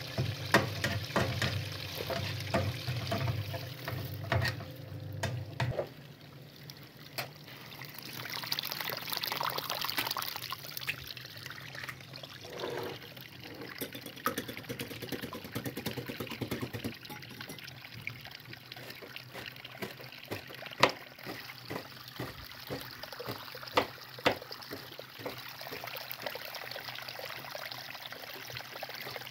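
A run of kitchen sounds. First a spatula stirs and scrapes vegetables in a nonstick frying pan over a steady low hum. Then a wire whisk beats eggs in a glass bowl, and near the end a kitchen knife chops dill on a plastic cutting board in a few sharp strikes.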